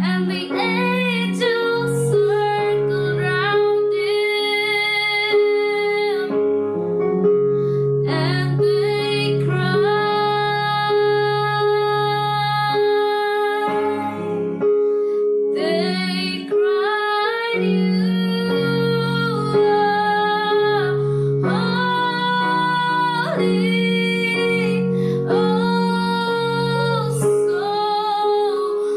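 Woman singing a slow worship song in long, held notes over sustained electric keyboard chords.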